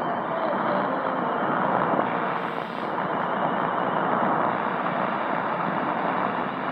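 Shortwave reception on a Tecsun PL-660 portable receiver tuned to 15765 kHz: steady static hiss with faint interfering tones, and the broadcast lost under the noise.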